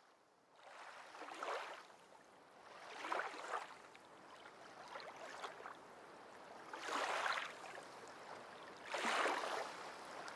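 Faint water washing along a sailboat's hull, rising and falling in soft swells about every two seconds.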